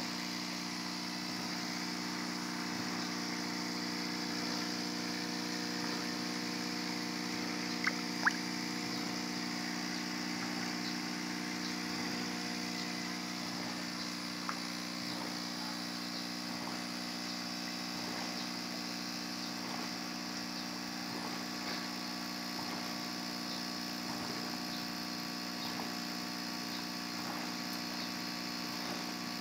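Steady hum of an electric pump running, with water bubbling and churning where the hose feeds the tub. Two sharp clicks about eight seconds in.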